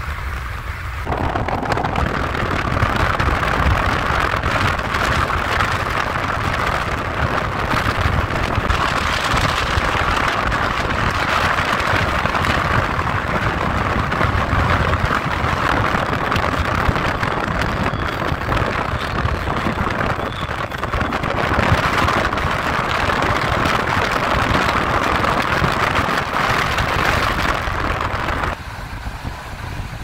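Steady road and wind noise of a moving car: tyre rumble with air rushing past. It grows louder about a second in and drops off near the end.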